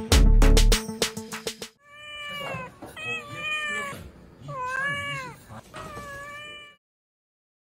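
Beat-driven music that cuts off about a second and a half in, then a cat meowing five or so times, some calls long with pitch that rises and falls.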